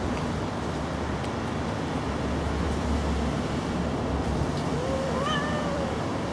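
Steady low rumble of wind and outdoor background noise. About five seconds in, a cat gives a single short meow that rises and falls.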